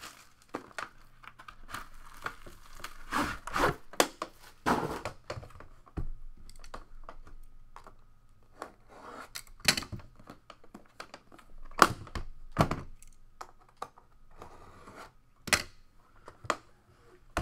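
Plastic wrap being cut, torn and crinkled off a yellow aluminium Panini Flawless card briefcase, with clicks and knocks as the metal case is handled and set down; a few sharp knocks are the loudest sounds, about two-thirds of the way through.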